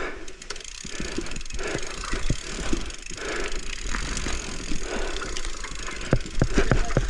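Mountain bike riding over rough trail: tyres on dirt with frequent rattles, clicks and knocks from the bike, over a steady low rumble, the knocks thickening near the end.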